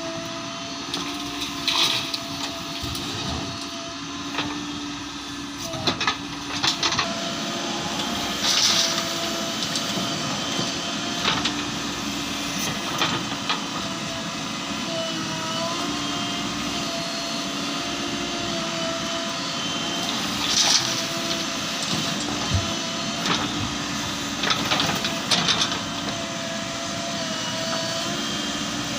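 JCB 3DX backhoe loader's diesel engine working under load, a steady drone with a slightly wavering whine, broken every few seconds by sharp knocks and scrapes of the digging bucket.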